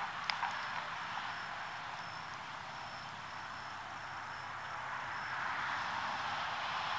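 Insects chirring, a thin high trill that pulses on and off over a steady hiss that swells slightly near the end; a single click just after the start.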